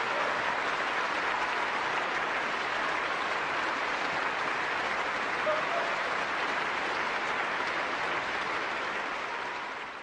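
Concert-hall audience applauding, a dense, steady clapping that fades away near the end.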